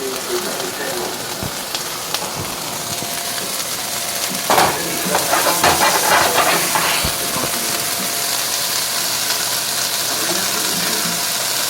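Steady kitchen hiss during cooking, with a few seconds of clattering and knocking about halfway through.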